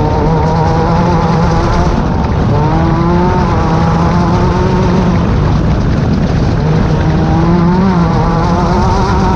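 Class 10 desert race car's engine running hard, its pitch climbing and dipping a few times as the throttle changes, over a dense rushing noise.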